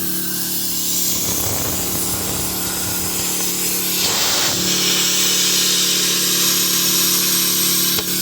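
Air compressor running with a steady hum while compressed air hisses into a riding mower tire through a leaking hose; the hiss grows stronger about halfway through as the tire takes air. A short click near the end.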